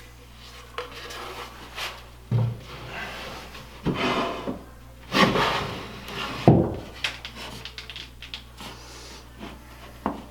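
MDF shelf pieces being handled and rubbed together during gluing, with irregular scraping and several sharp knocks of wood on wood.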